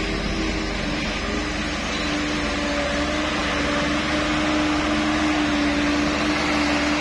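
Diesel engine of a Mitsubishi Colt Diesel light truck pulling under heavy load as the laden truck climbs a soft muddy slope. A steady drone whose tone rises slightly over the seconds.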